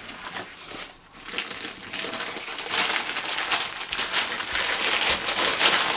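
Thin clear plastic bag crinkling and rustling as a paper instruction booklet is pushed into it. The sound dips about a second in, then picks up as steady dense crinkling for the rest.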